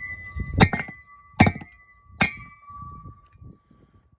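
Hammer tapping a drain plug into a boat hull's plug hole: three sharp blows about 0.8 s apart, each leaving a clear ringing tone.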